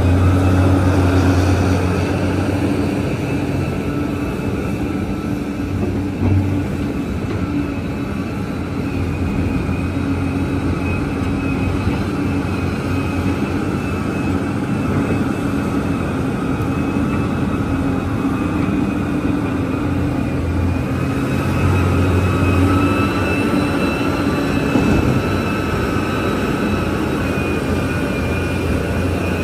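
Large Liebherr mining excavator running: a deep steady drone with a high whine above it, easing after about two seconds and swelling again about two-thirds of the way through.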